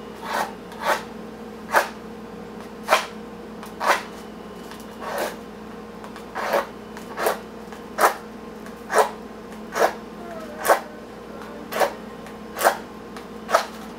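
A wooden match struck over and over along the striker strip on the side of a cardboard matchbox: about fifteen short scrapes, roughly one a second.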